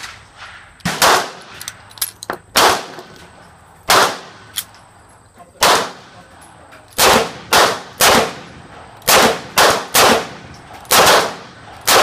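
A string of magnum revolver shots from a stainless Smith & Wesson revolver, fired at an irregular pace, often less than a second apart, each a sharp report with a short echo. Fainter shots or clicks fall between them.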